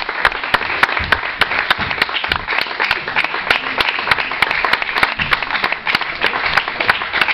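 Audience applauding, many hands clapping densely and steadily at the end of a comedy act.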